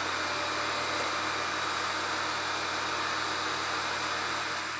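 Bridgeport mill head spindle and motor running at high speed, a steady whir that begins to die away at the very end.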